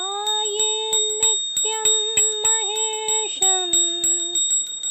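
A woman's voice singing a slow, wordless opening phrase of a Sanskrit Shiva dhyana chant, gliding up into long held notes. Under it runs a quick, regular ticking beat and a steady high tone.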